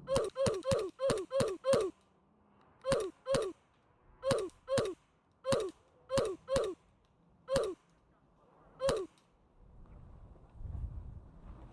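Goose honking: about fifteen short honks, each dropping in pitch. A quick run of six comes first, then pairs and single honks spaced out over the next several seconds.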